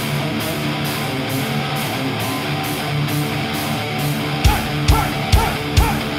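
Heavy metal band playing live, with distorted electric guitars. About four and a half seconds in, heavy drum hits come in about twice a second.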